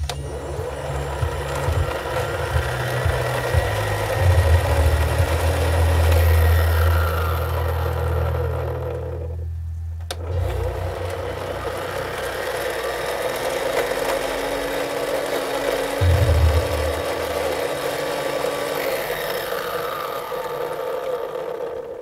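Hot Wheels race track running on an AC adapter in place of its batteries, giving a continuous engine-like drone with rising and falling revving tones. The sound breaks off for a moment about ten seconds in.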